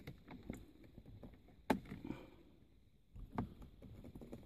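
Faint clicks and knocks of an Allen key working a bolt on a short-shift kit inside a car's gear-lever housing, with a sharper knock about a third of the way in and another past the middle.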